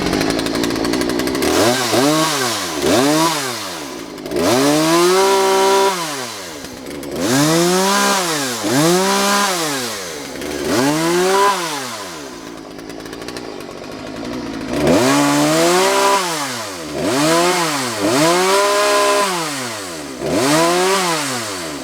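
Vintage Poulan Wood Shark two-stroke chainsaw running and being revved again and again, about a dozen times. Each time the pitch rises and falls back to idle. Some revs are quick blips, others are held a second or more, with a few seconds of idling in the middle.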